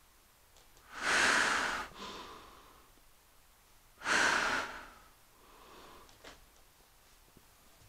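Heavy breathing through a full-face rubber gas mask: two loud, hissing breaths about three seconds apart, each followed by a fainter one.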